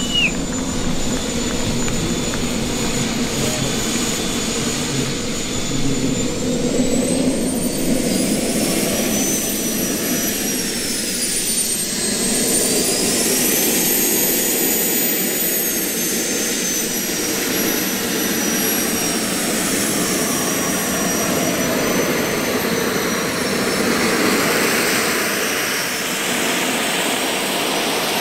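JetCat P400 Pro turbine of a giant-scale RC Fiat G.91 jet model running at low ground power, a steady rush with a high whine that dips and climbs back about twelve seconds in, then slowly sinks.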